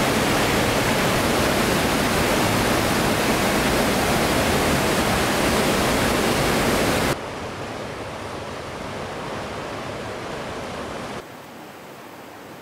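Steady rushing noise of a river's rapids in flood, the South Fork American River running at about 27,000 cfs. The level drops abruptly to a quieter rush about seven seconds in, and lower again near the end.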